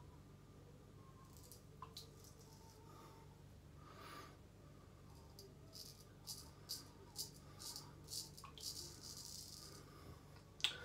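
Faint scratchy rasps of a C.V. Heljestrand straight razor cutting through lathered stubble. It makes a quick run of short strokes from about halfway through. A single sharp click comes just before the end.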